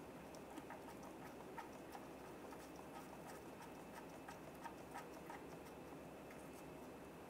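Faint, irregular light clicks and ticks as the oil drain plug is threaded back into the oil pan by hand, a few a second.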